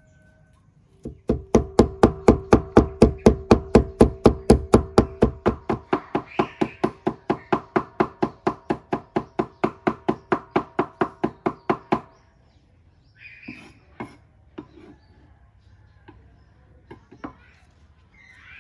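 Cleaver chopping garlic on a wooden cutting board, fast even strokes at about four a second, each a sharp knock with a ringing tone from the board and table. The chopping stops about twelve seconds in, leaving a few scattered knocks.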